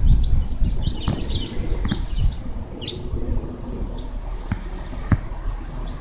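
Small birds chirping, with many short repeated chirps and down-sweeping notes, over wind buffeting the microphone that is strongest at the start and eases off. A single sharp knock about five seconds in.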